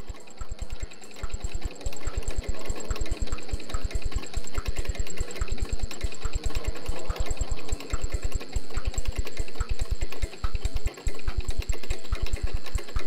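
A machine pulsing rapidly and evenly, about six low thumps a second, with a lighter click about twice a second and a faint steady high whine over it.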